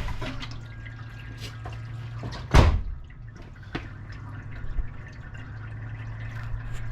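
A few light clicks and knocks with one sharp clank about two and a half seconds in, over a faint low steady hum, as parts and tools are handled at the Jeep's front wheel hub.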